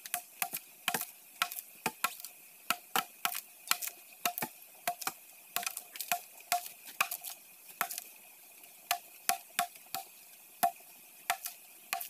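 A machete chopping into a wooden log: quick, irregular sharp strikes, roughly two or three a second, each with a short ring.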